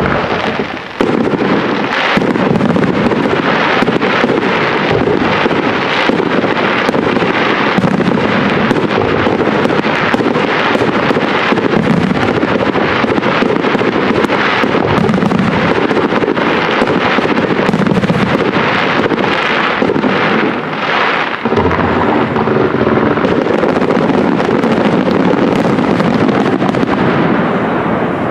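Fireworks display: aerial shells bursting in rapid, near-continuous succession, a dense barrage of bangs about two a second. It breaks off briefly about three-quarters of the way through, then eases off at the end.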